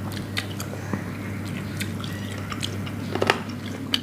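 Close-up eating sounds: biting and chewing grilled chicken wings, with many short wet clicks and smacks, over a steady low hum.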